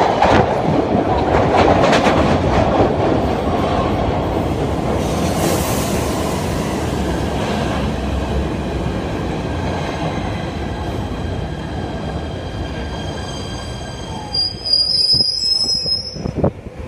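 PATH subway train (PA5 cars) pulling into an underground station platform: a loud rumble of wheels on rail that slowly fades as it slows. It ends with a high, multi-toned squeal as it comes to a stop near the end.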